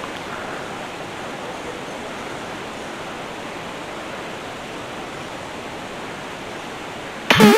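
A steady, even rushing hiss with no rhythm or pitch. Near the end a person's voice breaks in briefly with a short exclamation.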